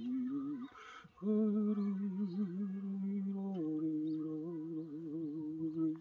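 A person humming a slow tune in long held notes with a slight waver: a short note, a brief pause, then a long note that steps down to a lower one about three and a half seconds in.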